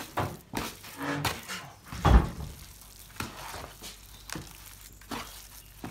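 Wooden spoon working a thick, wet pumpkin dough in a plastic bowl: irregular squelching, scraping strokes, with a heavier knock against the bowl about two seconds in.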